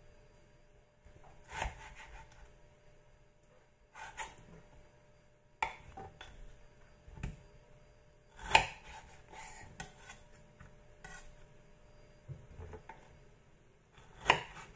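Kitchen knife cutting the hard core off pineapple spears on a wooden cutting board: quiet slicing broken by about six sharp knocks of the blade on the board, a second or more apart, the loudest just past halfway.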